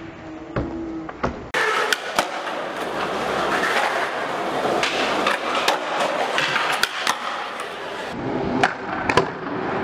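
Skateboard wheels rolling on concrete. About a second and a half in, the sound changes abruptly to louder, denser rolling and grinding of the board on a concrete ledge, with sharp clacks of the board popping and landing scattered throughout.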